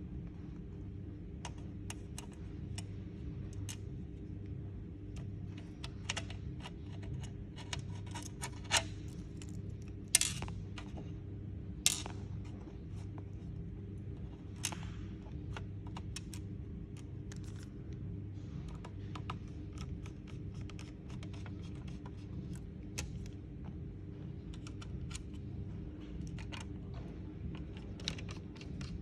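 Scattered small clicks, taps and light scrapes of hands working on a laptop's parts and screws, with a few sharper clicks around the middle, over a steady low hum.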